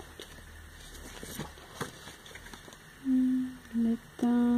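Faint clicks and rustles of items being handled, then three short hummed "mm" sounds from a woman's voice near the end, which are the loudest part.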